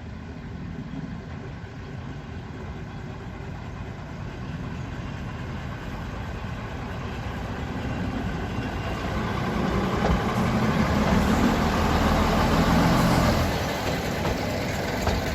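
A train on a heritage railway running past, a steady mechanical rumble that builds to its loudest about ten to thirteen seconds in and then eases a little.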